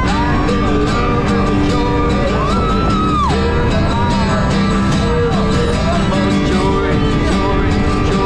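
A song with singing over guitar, loud and steady.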